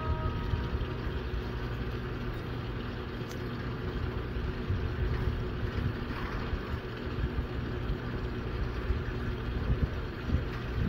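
Wind buffeting the microphone, a fluttering low rumble with a faint steady hum underneath. The last of an outdoor warning siren dies away in the first half-second.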